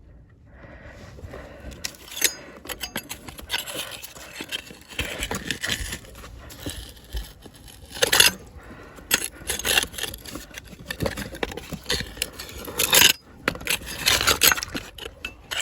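Hand digging and scraping in wet tidal mud to pull a long-armed octopus from its burrow: irregular crunching and scraping strokes, some sharp, the loudest about eight and thirteen seconds in.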